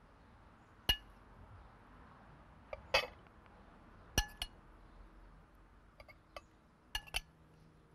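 Metal serving spoon clinking against a ceramic bowl and plate while grilled vegetables are served out: about half a dozen sharp clinks spread out, some ringing briefly.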